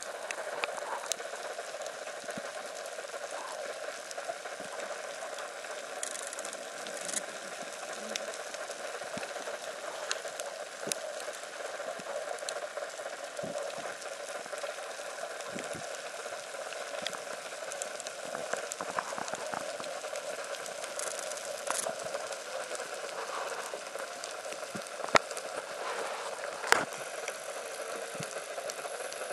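Underwater ambience heard through a submerged camera: a steady crackling hiss with many scattered sharp clicks, and two louder clicks near the end.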